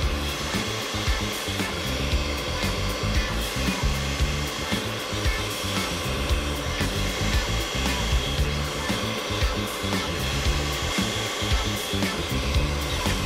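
Electric food processor running steadily with a motor whine, chopping raw fish fillet and bulgur into a paste. Background music plays underneath.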